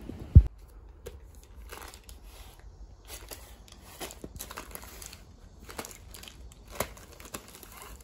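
Plastic packaging of inflatable swim arm bands crinkling in short bursts as the packs are handled. A single dull thump, the loudest sound, comes about half a second in.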